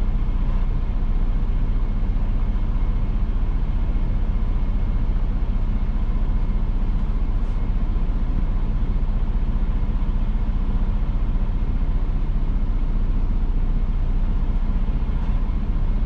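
Semi truck's diesel engine idling steadily, heard from inside the cab: a constant low drone with a faint thin tone above it.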